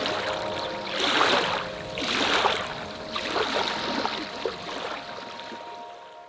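Water splashing in irregular surges, three stronger ones about a second apart early on, over soft sustained music tones; the splashing dies away near the end.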